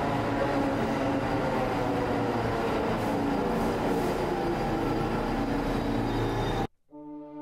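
Subway train running, heard from inside the car: a steady rumble with a hum of many steady tones that cuts off abruptly near the end. Orchestral music with horn notes begins just after.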